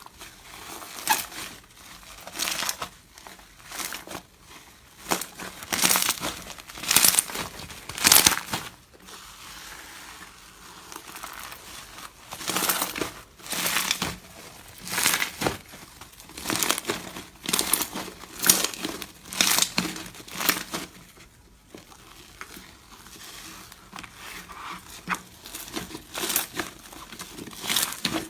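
Slime being squeezed and pressed by hand, making crinkly, crackling bursts about once or twice a second, with brief quieter pauses between runs.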